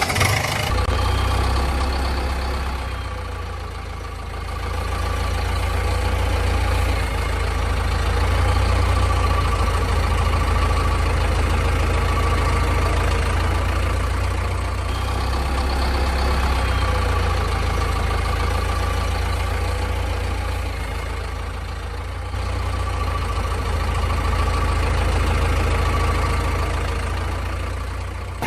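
A heavy engine idling steadily with a deep low rumble, its loudness slowly swelling and easing a few times.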